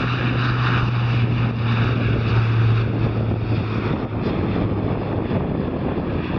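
Airbus A400M climbing away at takeoff power on its four TP400 turboprops: a loud, steady low propeller drone over a rushing roar. The low drone fades out about two-thirds of the way through as the aircraft banks away, while the rushing noise goes on.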